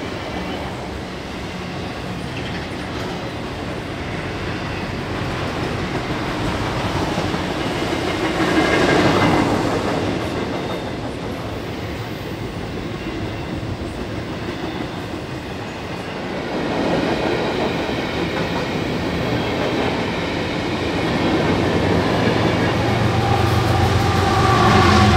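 Double-stack container freight train rolling past, a steady rumble and clatter of steel wheels on the rails that swells louder twice. Near the end a deep steady hum of diesel locomotive engines comes in.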